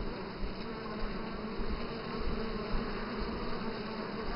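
A cluster of Italian honey bees buzzing steadily inside their screened transport package, a low, even hum with no breaks.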